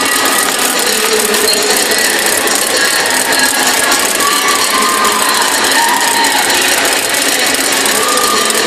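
Crowd cheering and shouting over a continuous dense rattling clatter of hand-spun ratchet noisemakers.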